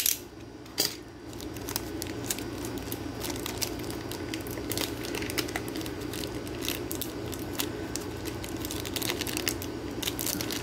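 Clear hard-plastic Ultra PRO One Touch card holders and their plastic wrapping being handled: a run of light plastic clicks and ticks with some crinkling, over a steady low background hum.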